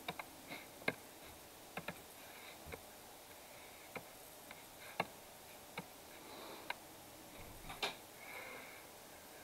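Faint, irregular sharp clicks, about a dozen, from someone working a computer's input devices while colouring in a drawing program, over a low hiss.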